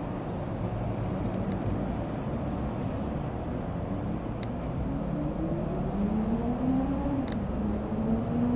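Comco Ikarus C42 FB80 microlight's Rotax 912 engine and propeller droning in flight. The pitch climbs slowly and then drops a little about seven seconds in.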